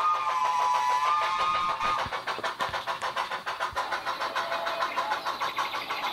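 Model steam locomotive's onboard sound decoder and speaker playing a steam whistle, a steady multi-note chord with a slight wobble in pitch that cuts off about two seconds in, followed by a steady, rapid rhythm of exhaust chuffs as the train runs on.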